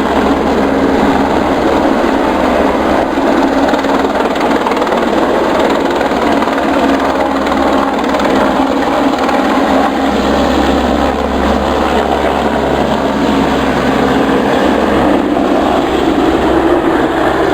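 Helibras HB350B Esquilo single-turbine helicopter flying over, a steady loud rotor and turbine noise.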